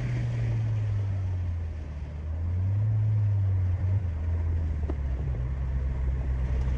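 Peugeot 208 GT's 1.6 turbo four-cylinder engine running under way, a low drone that climbs in pitch about two and a half seconds in, drops back just before the four-second mark, then holds steady.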